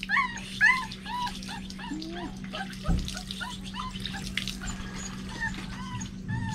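Puppy whimpering in short, high, repeated cries about two a second, loudest in the first second and fainter after, with water splashing and trickling in a plastic bucket as the puppy is rinsed.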